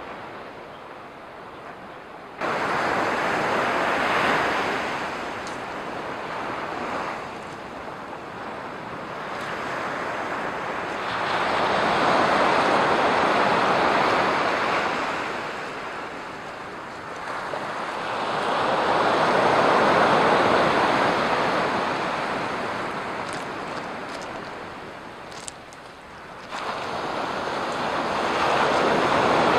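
Surf breaking and washing up a black-sand beach, a steady rush that swells and ebbs in slow surges several seconds apart, stepping up suddenly about two seconds in and again near the end.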